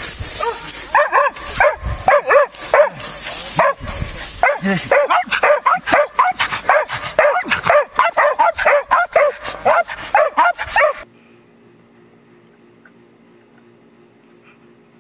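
A dog barking and yelping rapidly and excitedly, several short high calls a second. About eleven seconds in it stops abruptly, leaving only a faint steady hum.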